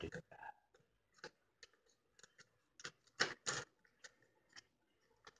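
Scissors snipping through a sheet of clear plastic: a string of short, irregular snips and crackles of the plastic, the loudest pair about three seconds in.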